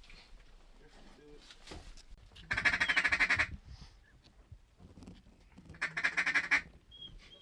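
Duck call blown in two rapid runs of quacking notes, each about a second long and the second about three seconds after the first, calling to ducks over the decoys.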